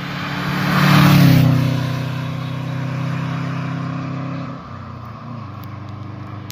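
A car drives past close by at speed, its engine and tyre noise loudest about a second in, the engine note dropping slightly in pitch as it goes by. It then runs on steadily as it pulls away and falls off sharply in level a little before the five-second mark.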